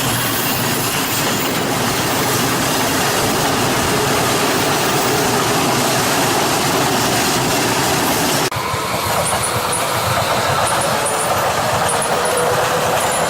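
Trains running on rails: a steady, loud rush of wheel and rail noise. About two-thirds of the way through it cuts abruptly to another train, where regular pairs of high ticks sound over the running noise.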